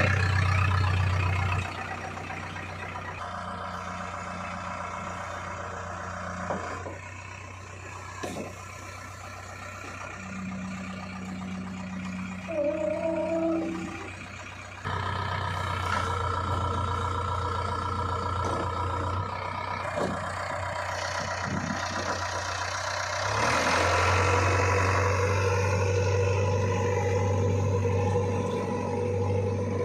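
Heavy diesel engine of a JCB 3DX backhoe loader running while it works, its level dropping early on, then rising with higher engine speed about halfway and again near the end. A brief wavering higher tone sounds a little before halfway.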